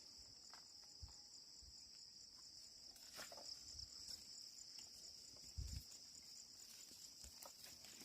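Faint, steady high-pitched chirring of insects, with a few soft low thumps.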